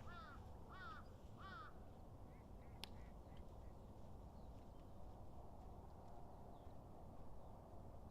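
A crow cawing three times in quick succession in the first two seconds, then a single faint click, over a faint low outdoor background.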